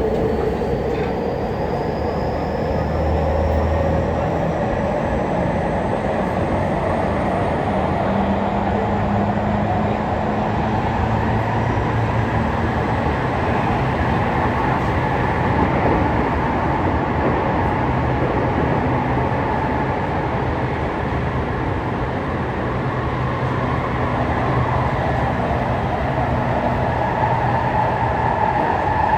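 Tokyu 5050 series electric train running, heard from inside the car. A thin whine from the traction motors rises in pitch over the first several seconds as the train picks up speed, over a steady rumble of wheels on rail.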